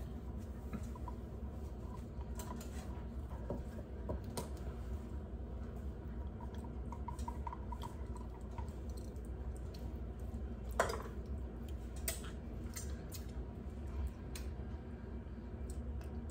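Scattered light clinks and scrapes of a spoon stirring in a glass cup, over a steady low hum.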